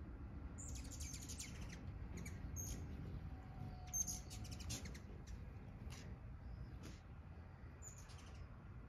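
Hummingbirds squabbling at a feeder: bursts of high, thin chips and rapid chatter, the busiest about a second in and again around four to five seconds in, with a few single chirps later. A steady low rumble runs underneath.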